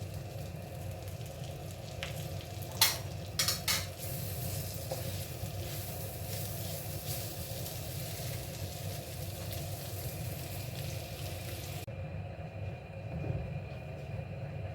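Soya beans and spices sizzling in coconut oil in a frying pan, with a few sharp knocks of the spatula against the pan about three seconds in. The sizzle cuts off suddenly near the end, leaving a steady low hum.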